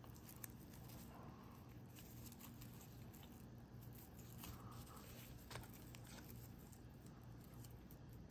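Near silence: faint rustling and a few soft clicks of raffia yarn being handled as its tail is threaded through crochet stitches with a tapestry needle, over a low steady hum.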